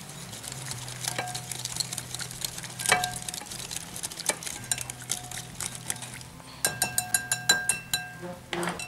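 A metal utensil stirring a thick spice marinade in a glass bowl, with scattered clinks against the bowl. A fast run of ringing clinks comes about two-thirds of the way in.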